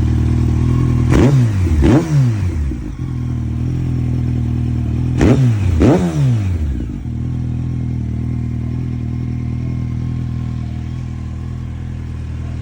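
Kawasaki ZX-12R's inline-four engine idling through an unbaffled Yoshimura exhaust, with the throttle blipped in two pairs: two quick revs about a second in and two more about five seconds in, each dropping straight back to a steady idle.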